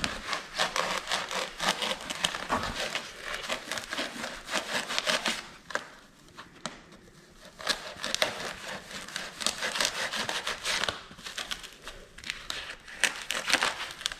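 A foam pool noodle being cut with a blade in quick rasping sawing strokes. The strokes stop for about two seconds midway, then resume.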